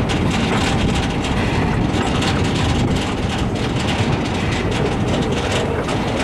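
The K 92 steam train running: a steady rumble with irregular clatter of wheels on the rails, heard from close behind the locomotive.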